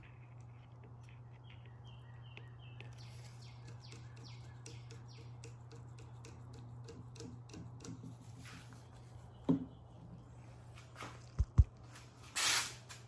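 Small clicks and knocks of hands working on a vintage metal sewing machine over a steady low hum, with two sharp knocks about two-thirds of the way through and a short rustling burst near the end.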